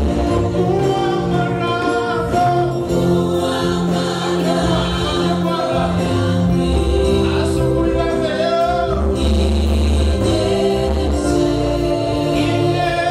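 Live Swahili gospel worship song: a man leads into a handheld microphone with other singers joining, over steady instrumental accompaniment with sustained low notes, amplified through the church sound system.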